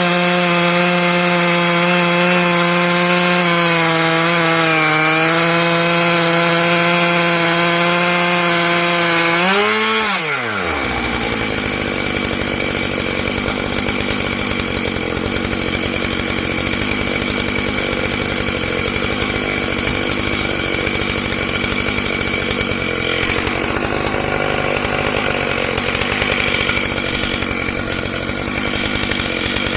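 Stihl MS661 chainsaw on a chainsaw mill running at high revs while ripping through a pine log. About ten seconds in, the revs fall away sharply, and the saw keeps running at lower speed with a rougher sound.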